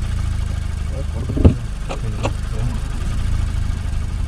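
Steady low drone of a car's engine and road noise heard inside the cabin, with a few short knocks, the loudest about one and a half seconds in.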